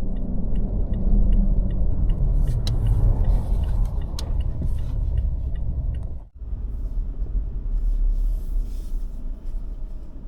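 Vehicle on the move, a steady low road and engine rumble, with a brief break about six seconds in.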